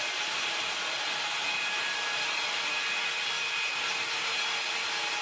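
MKS1200 automatic horizontal band sawmill cutting lengthwise through a log: a steady hiss of the band blade in the wood over a faint steady hum from the machine.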